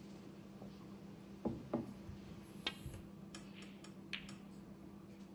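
Scattered light clicks and ticks over a steady low hum, with two dull knocks in quick succession about a second and a half in, the loudest sounds.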